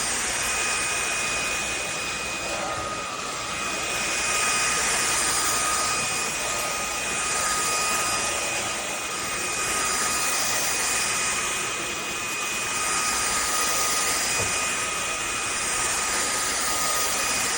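Cordless stick vacuum with a brushless motor running steadily: a rush of air with a high, steady whine over it, swelling and easing a little every few seconds.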